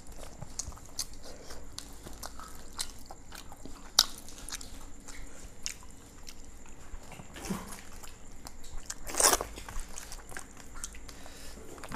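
People eating rice and chicken curry by hand from steel plates: chewing and crunching, with frequent small clicks of fingers and food against the plates. There is a sharp clink about four seconds in and a louder scrape near nine seconds.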